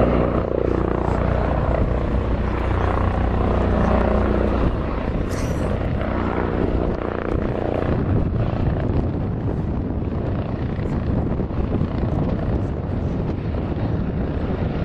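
Bell/Agusta AB-609 tiltrotor's proprotors and turboshaft engines running loud, with a steady low pulsing drone. After about five seconds it drops a little and becomes a rougher rushing sound.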